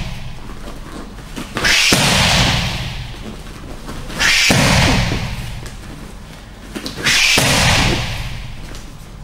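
Middle kicks landing on held Thai pads: three sudden smacks about 2.7 seconds apart, each fading over a second or so.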